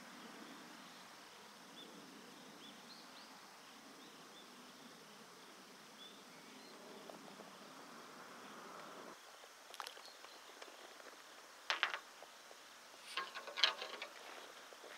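Quiet outdoor ambience with faint insects chirping over a low hiss. A few short sharp sounds come in the second half, the loudest two about two-thirds of the way in and near the end.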